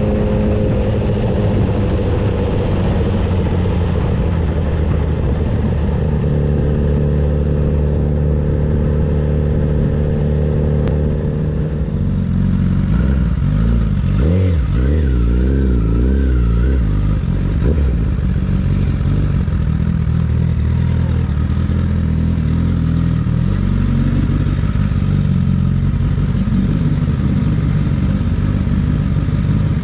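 Honda CBR1000RR SP's inline-four engine running through a Yoshimura exhaust while the bike is ridden. The engine holds a steady note for about twelve seconds, then rises and falls in pitch as the speed changes.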